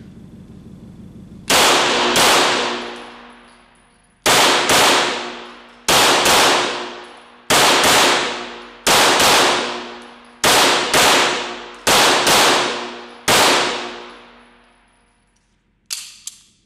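Walther Q5 Match 9 mm pistol fired in double taps: seven quick pairs of shots about half a second apart and a last single shot, each ringing out with a long echo in an indoor range. Two lighter clicks follow near the end.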